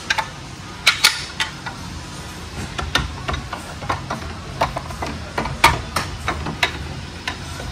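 Irregular metal clicks and knocks as a Heckler & Koch SR9T roller-delayed rifle is laid into a steel barrel-press fixture and seated by hand. The sharpest knocks come about one second in and again about five and a half seconds in.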